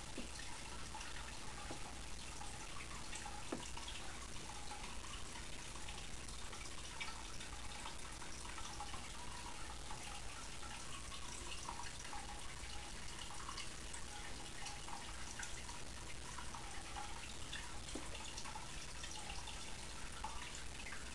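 Water dripping and trickling: a steady low hiss with many small, irregular plinks.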